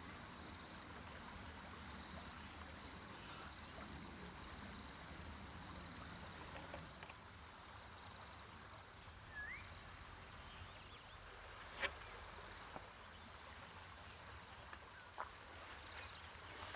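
Faint outdoor ambience of insects chirring steadily, cricket-like, with a single short rising bird chirp about halfway through and a few faint sharp clicks, the clearest about two-thirds of the way in.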